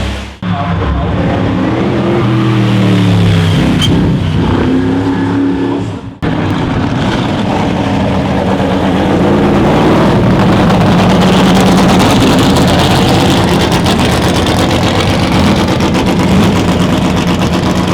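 Competition car engines accelerating hard up a hillclimb course, pitch climbing and dropping back as they shift up through the gears. The sound breaks off abruptly about half a second in and again about six seconds in, then carries on with engine noise again.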